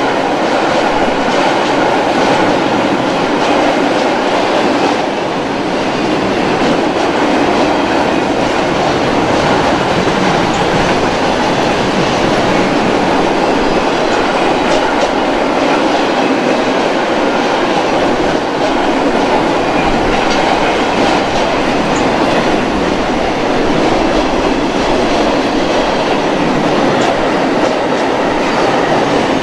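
Empty double-deck car-carrier freight wagons rolling past at speed: a loud, steady rumble and rattle of steel wheels on the rails.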